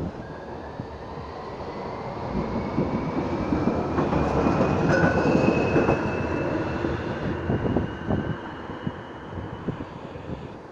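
Nottingham Express Transit tram passing beneath on its tracks. The running noise swells to a peak about halfway through and then fades, with a thin whine that climbs steadily in pitch.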